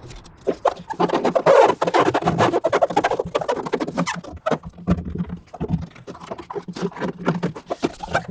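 Hand roller worked back and forth over foil-faced FatMat butyl sound deadener on a steel truck floor, pressing it down for adhesion: a rapid, irregular run of crackling and rubbing.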